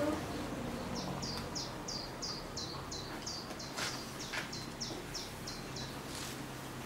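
A small bird calling: a quick, regular series of high downward-sliding chirps, about three a second, that stops about six seconds in, with a couple of faint clicks along the way.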